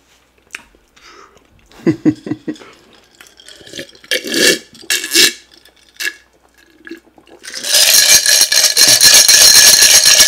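A few gulps of a drink from a glass jar, then ice rattled fast in the glass from about seven and a half seconds in: a loud, dense rattle with a ringing glass tone.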